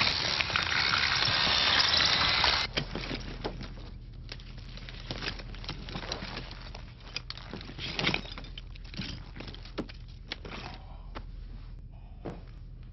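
A surgical drill runs loudly for the first few seconds and cuts off abruptly. Then a low steady hum with scattered small clicks, creaks and rustles.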